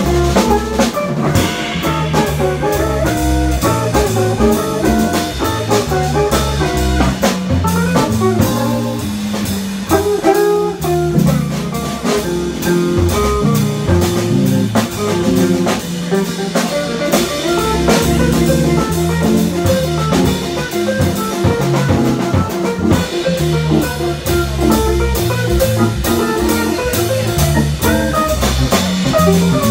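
Live jazz organ trio playing: electric guitar and organ, with the organ's bass line underneath and a drum kit keeping time on cymbals and drums.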